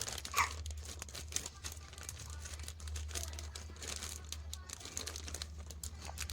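Plastic snack packets crinkling and rustling as they are handled and packed, in irregular bursts, with a steady low hum underneath.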